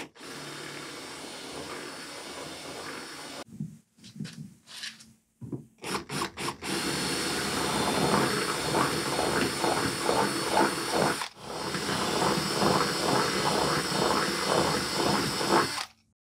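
Cordless drill boring down into the foam core of a composite kayak's deck pillar, opening the hole out front to back into a chamber. It runs steadily for a few seconds, gives several short trigger bursts, then runs in two longer, louder spells with a brief stop between, and cuts off near the end.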